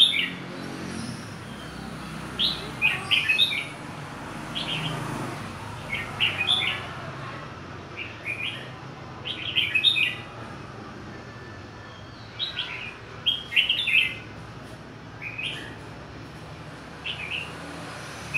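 Caged young male red-whiskered bulbul, just through its moult, singing short, bright phrases, one every second or two, with brief pauses between them.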